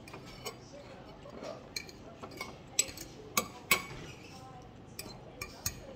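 Cutlery clinking and scraping on a plate while eating noodles: scattered light clicks, with three sharp, louder clinks near the middle.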